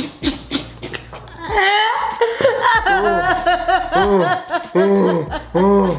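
Hearty laughter, quieter at first, then from about halfway a loud, quick string of rising-and-falling 'ha' pulses.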